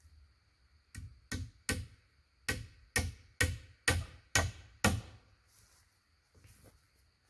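Hammer blows on the log wall: nine sharp, ringing strikes about half a second apart, growing louder.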